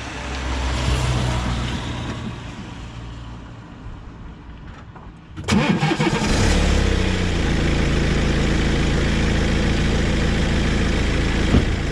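BMW F30 3 Series car engine cranking and starting about five and a half seconds in, after a few seconds of quieter low hum, then settling into a steady idle.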